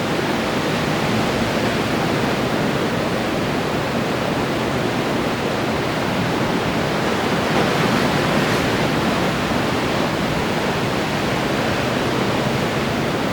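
Ocean surf: breaking waves and churning foam making a steady wash of noise, swelling slightly about eight seconds in.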